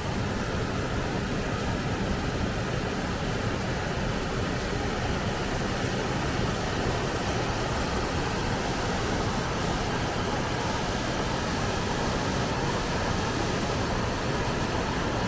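Steady rush of water from a waterfall, an even noise that holds constant with no breaks.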